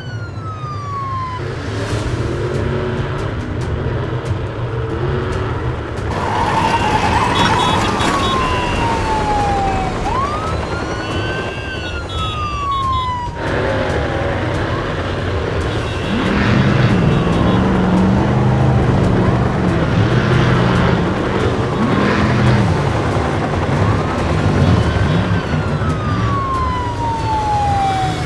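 Police car siren wailing in slow cycles, each a quick rise then a long fall, repeating every several seconds over running vehicle engines. From a little past halfway a deeper, heavier engine rumble joins in.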